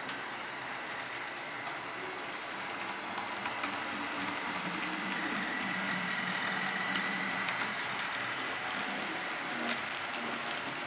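Model freight train running past on layout track: a steady rolling hiss with a faint high motor whine that grows louder in the middle as the cars pass close, and a few light clicks.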